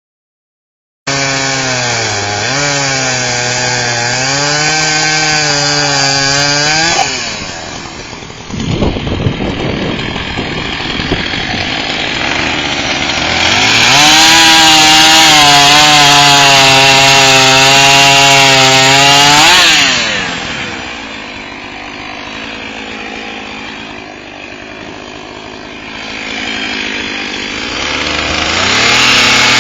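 Husqvarna 450 e-series two-stroke chainsaw running at high revs, dropping back to idle, then revved up to full throttle and held for about six seconds, idling again, and revved up once more near the end.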